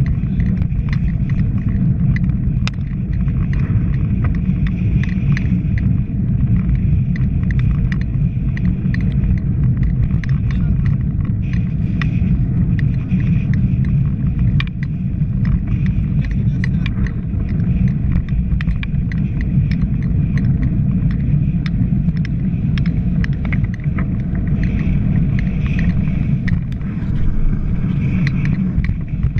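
Wind buffeting the microphone of a camera on a moving bicycle: a steady, loud low rumble, with scattered light ticks.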